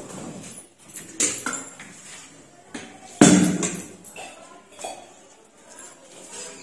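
Steel milk pail full of fresh milk being handled and set down on the shed floor: a loud clank about three seconds in, with a few lighter metal knocks before and after.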